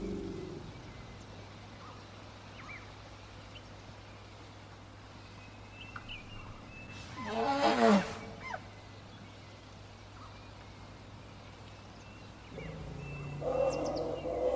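African bush elephant trumpeting once, about halfway through: a loud, rough blast that falls in pitch over about a second. Faint bird chirps come and go around it, and a lower, steadier call begins near the end.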